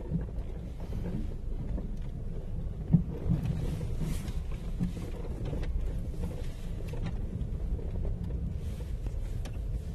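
Steady low rumble of a car moving along a rough street, with scattered knocks and one sharp knock about three seconds in.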